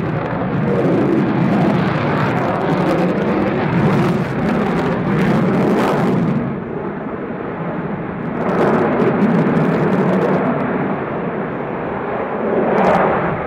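F-22 Raptor fighter jet's engines heard from the ground as it flies overhead: a steady, loud jet rush that swells and fades. It dips a few seconds in and builds again about a second and a half later and near the end.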